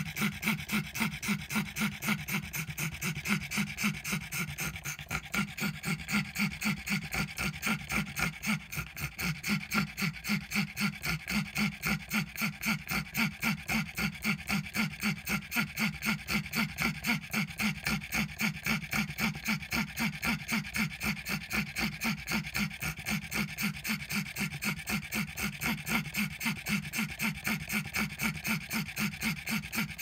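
A pug panting fast and steadily, about three breaths a second, each breath wheezing.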